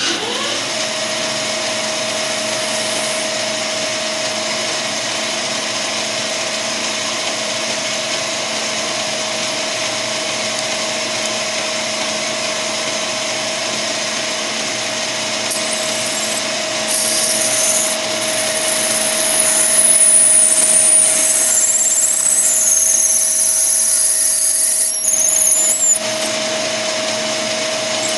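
Smart & Brown Model A lathe starting up and settling into a steady running whine. From about halfway in, a thin high squeal that wanders in pitch joins it as the tool cuts the free-cutting brass dry.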